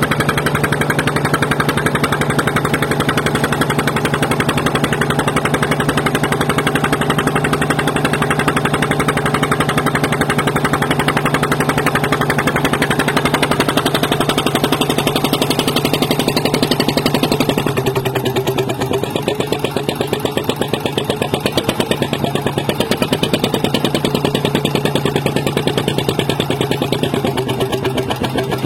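An engine running steadily, settling to a slightly lower, quieter note about eighteen seconds in.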